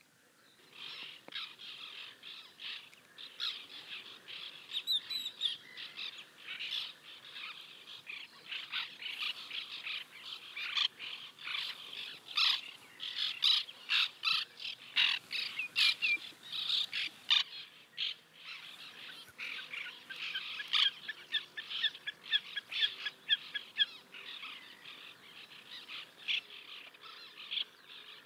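A colony of white-winged terns calling, many short calls overlapping densely. The calling starts about a second in.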